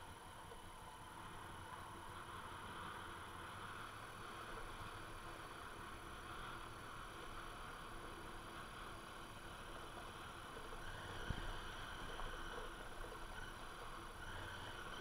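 Faint, muffled riding noise from a Honda Africa Twin motorcycle on a loose gravel track: a steady hiss with a weak low engine hum, and one sharp knock from a bump about eleven seconds in.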